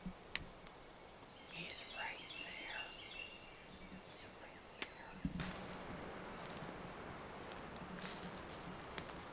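Faint woodland quiet with a few light clicks and a short chirping bird call, then, about halfway through, a steady rustle with scattered crackles: boots walking through dry leaf litter.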